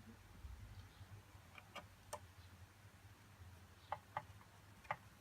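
Faint, scattered clicks and taps of a small plastic filament spindle and its screws being handled and fitted, about six in all, over a low steady hum.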